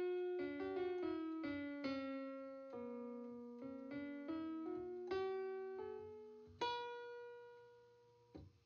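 Background piano music: a slow melody of single notes that steps down and back up. About two-thirds of the way in it ends on a chord that fades away.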